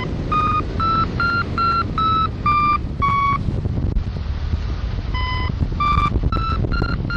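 Hang-gliding variometer beeping in short repeated tones, about three a second, their pitch rising and then falling, with a pause of about two seconds in the middle before the beeping resumes; the beeps signal that the glider is climbing. Wind rushing over the microphone underneath.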